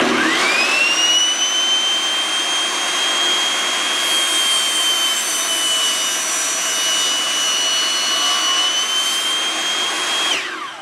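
A Rock&Rocker 8.5-inch jobsite table saw's 15-amp motor switched on, its whine rising over the first second to full speed, then running steadily with the blade spinning. Near the end it is switched off and the whine falls as the blade spins down.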